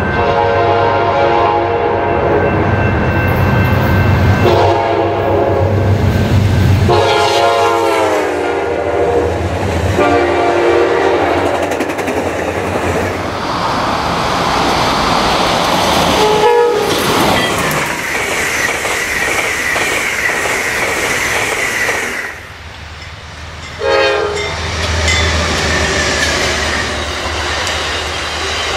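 Amtrak passenger train horn sounding four long blasts, one dropping in pitch as the train goes by, followed by the rumble and wheel clatter of passing trains with a steady high whine for a few seconds. After an abrupt break a short horn note sounds and a long train of passenger cars rolls past.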